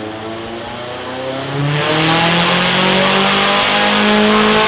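The ETS drift ute's engine under load on a chassis dyno during a power run, revving steadily upward in one long climb. It grows louder about two seconds in.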